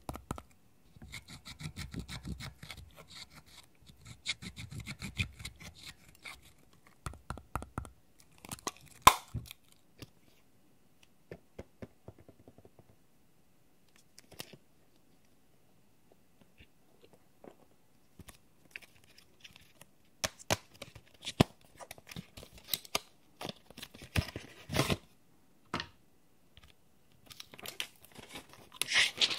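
Close-up handling sounds of makeup: a pointed tool scraping and crumbling eyeshadow out of a palette, then a quiet stretch, then sharp clicks and crinkly rustling of cosmetic packaging being handled and opened, busiest near the end.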